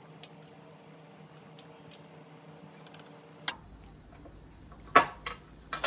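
A few faint clicks over a steady low hum, then, after the background changes abruptly past the middle, several louder clinks and knocks near the end.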